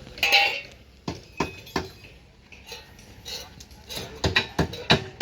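Sharp metallic clanks and knocks of construction work: one loud scraping clank about a quarter second in, three quick knocks a second later, then near the end a run of five knocks, about three a second.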